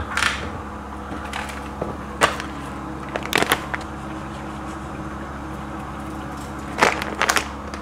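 A steady low hum with several short, sharp clicks and knocks scattered through it, the loudest pair near the end: kitchen handling at a pan of simmering chicken stock as salt is sprinkled in by hand.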